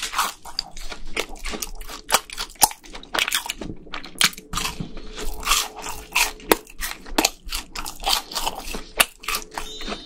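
Close-miked chewing of a fried cheese ball, with many irregular crisp crunches as the crust breaks. A twinkling chime sound effect comes in at the very end.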